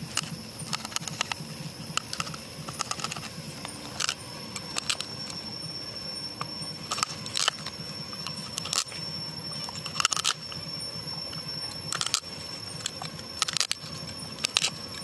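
Cleaver chopping skinned snake meat on a chopping board: sharp knocks of the blade hitting the board at an uneven pace, about one a second, some in quick pairs, over a steady background hiss.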